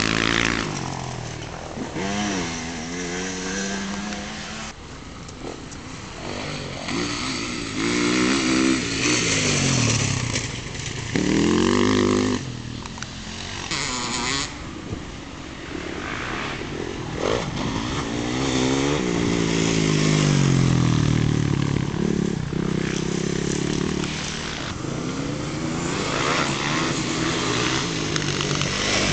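Enduro dirt bike engines revving hard as several bikes pass in turn, each engine's pitch climbing and dropping with the throttle and gear changes.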